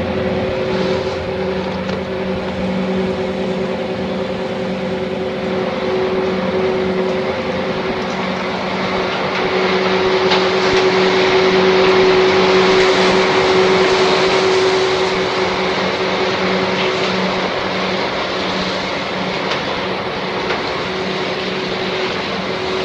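A river ferry's engines running with a steady drone, under a rushing noise that swells louder about halfway through.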